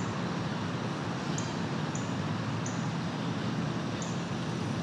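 Steady rush of flowing creek water near a small waterfall, with short high chirps repeating irregularly about once a second.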